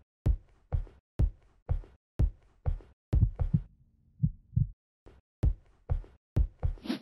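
Deep, evenly spaced thumps, about two a second, in a steady rhythm like a pulse. A short low hum comes in about halfway, and a brief bright swoosh comes at the very end.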